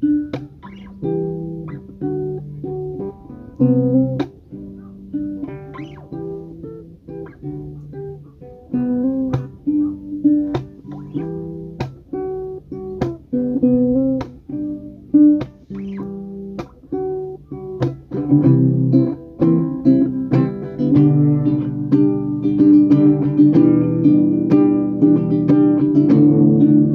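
Classical nylon-string acoustic guitar played fingerstyle: picked notes in a repeating pattern, growing fuller and louder with strummed chords about two-thirds of the way through.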